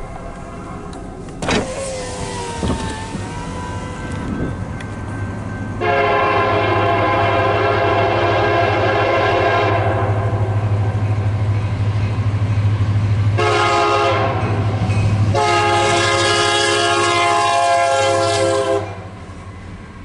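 Union Pacific SD70M diesel locomotive's air horn blowing for a road crossing: a long blast, a short one, and a final long one that stops near the end. Under it runs the low rumble of the approaching locomotive.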